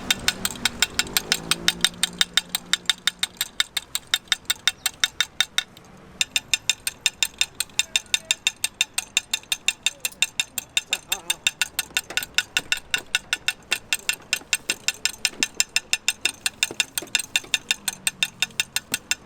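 Sharp clicking repeated steadily at about four to five clicks a second, with a short break about six seconds in: the rhythmic clacking that the rice-cake vendor's stall is known for.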